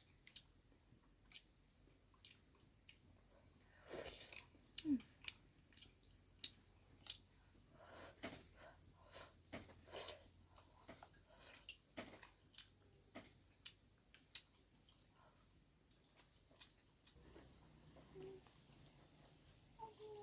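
Steady high-pitched chirring of crickets, with scattered light clicks and taps of eating utensils against bowls, the loudest cluster about four to five seconds in.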